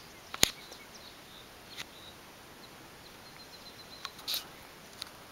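Quiet pine-forest riverbank ambience with small birds chirping faintly and a quick run of high ticks a little before four seconds in. A sharp click about half a second in is the loudest sound, with a few fainter clicks later.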